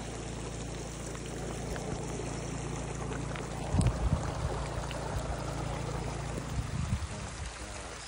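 Rainwater runoff flowing through a shallow gravel wash as a steady trickling rush. Low thumps stand out about four seconds in and again near seven seconds.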